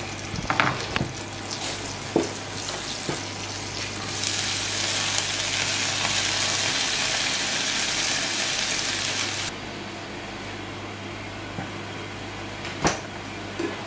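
Butter sizzling in a hot non-stick frying pan, then sliced leeks tipped in from a colander, frying much louder from about four seconds in; the loud sizzle cuts off suddenly about five seconds later. A steady low hum runs underneath.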